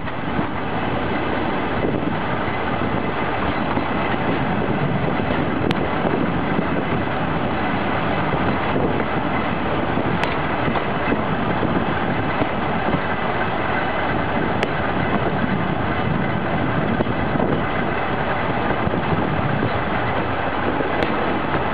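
Wheels and bogie of a 1950s Brossel railcar (SNCB ES401 catenary-service vehicle) running along the track: a steady rumble of wheels on rail and running gear, with four sharp knocks spread through it.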